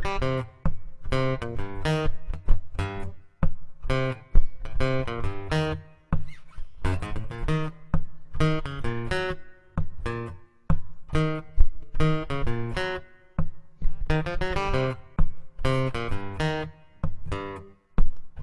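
Acoustic guitar strumming chords in a steady rhythm, an instrumental break in the song with no singing.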